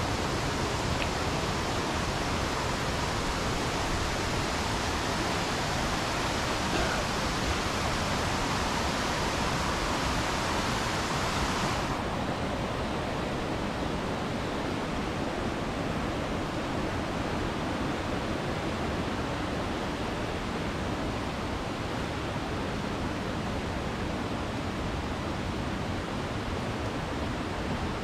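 Steady roar of a tall waterfall, running heavy with rainy-season water. About twelve seconds in, the sound abruptly turns duller, losing its hiss.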